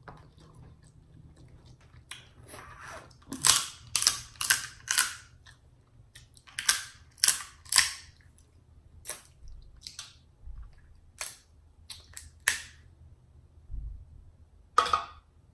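Snow crab leg shells cracking and snapping as they are broken open and bitten into: a quick series of sharp cracks in several clusters.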